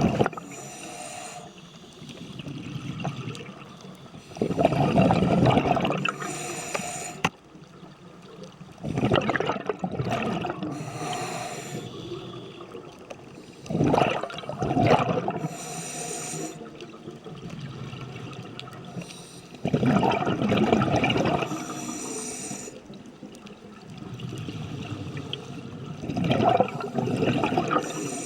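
A scuba diver's regulator breathing underwater: a bubbling exhale about every five to six seconds, each followed by a short hissing inhale.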